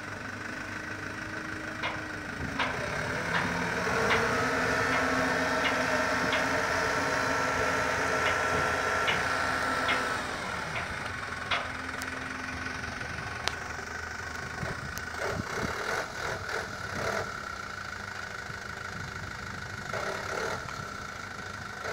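Diesel engines of an excavator and a dump truck running as the truck tips its load: the engine note rises about two seconds in and holds until about ten seconds in, then drops back to a steady idle, with scattered knocks throughout.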